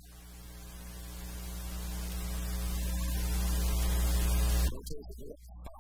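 Electrical mains hum with a buzzing hiss on the audio feed, swelling steadily louder and then cutting off suddenly about four and a half seconds in.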